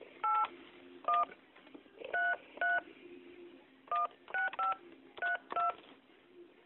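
Telephone keypad touch-tones (DTMF) as a phone number is keyed in: about nine short two-tone beeps in uneven groups, heard over a phone line.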